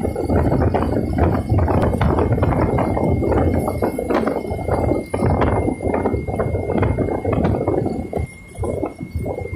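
Wind buffeting the microphone of a camera on a moving motorcycle, in rough irregular thumps over the low running of the engine, easing briefly near the end.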